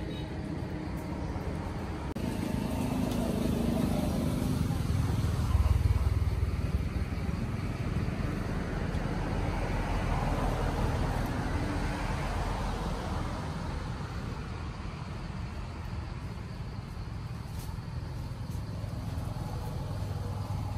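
Outdoor background noise dominated by a low rumble that swells a couple of seconds in, is loudest around six seconds and slowly eases off.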